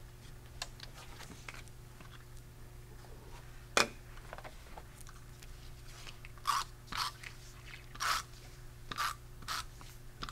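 Tape runner laying adhesive onto the back of a cardstock panel: a run of about eight short, crackly strokes about half a second apart in the second half, after a single sharp tap about four seconds in.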